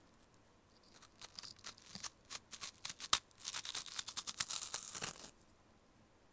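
Crisp crunching of an Umaibo puffed corn stick being bitten and chewed close to an earphone microphone: a dense run of sharp crackles for about four seconds, with one loud snap about halfway through, then it stops.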